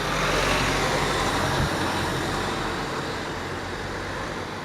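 A road vehicle driving past, its noise swelling to a peak about half a second in and then slowly fading away.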